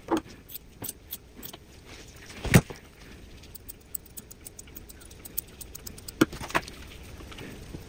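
Grooming scissors snipping through a Shih Tzu's leg fur: scattered light metallic clicks, a few of them sharper.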